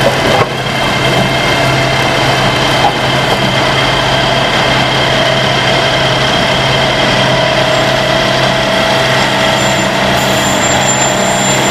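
Pile-boring drilling rig's engine and hydraulic drive running steadily with a constant whine as its bucket auger turns in the soil.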